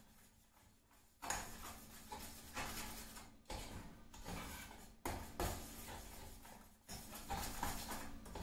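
A spoon stirring a thickening cornflour and dragon fruit mixture in a pan on the flame, heard as a run of short, irregular noisy strokes.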